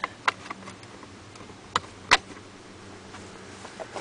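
A few scattered sharp clicks and knocks, the loudest about two seconds in, over a faint steady low hum.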